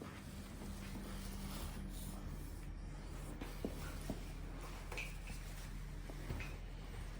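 Faint rustling and shifting of a patient on a chiropractic treatment table during a stretch, with a few soft clicks, over a steady low room hum.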